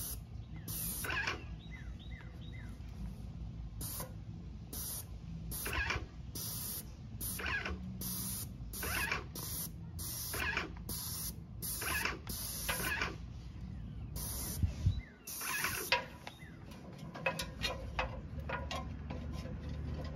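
Airless paint sprayer gun spraying paint onto brick in many short bursts of hiss, roughly one or two a second, as the trigger is pulled and released. A low steady hum runs underneath.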